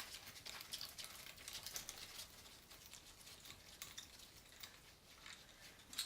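Faint, irregular clicking and scraping of a 10 mm socket wrench undoing the last oil pan bolts on a BMW R80 airhead boxer engine.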